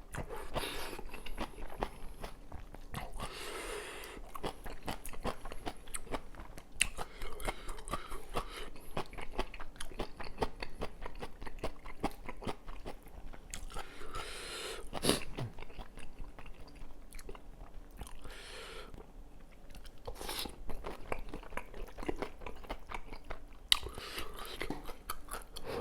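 Close-miked mouth sounds of a person eating kimchi kalguksu noodles and potato pancake: steady chewing and crunchy bites, with a few longer hissy stretches of about a second each.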